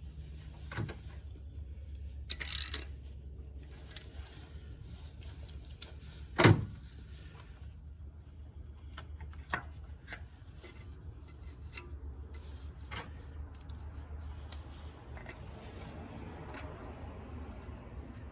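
Scattered clicks and knocks of hand tools and ignition coils being handled and refitted in a Honda Civic's engine bay. There is a brief rasp about two and a half seconds in and a sharp knock, the loudest sound, about six and a half seconds in, over a steady low hum.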